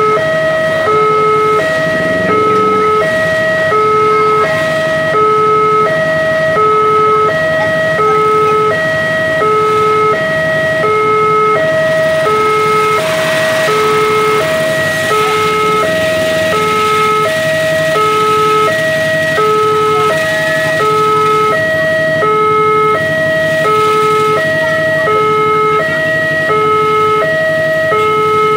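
Railway level-crossing warning alarm sounding with the barrier down: an electronic two-tone signal, a lower and a higher note alternating evenly with a full cycle about every second and a half.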